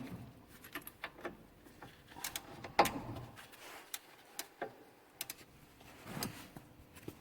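Irregular metallic clicks and knocks of hand tools on a car's anti-roll bar drop link, a spanner and hex key being worked onto the nut, with one sharper knock about three seconds in.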